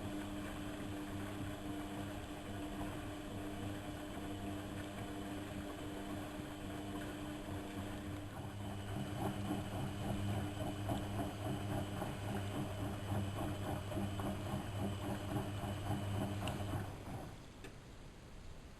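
Lloyds 825 washing machine running with a steady hum that turns rougher and busier about halfway through, then stops shortly before the end.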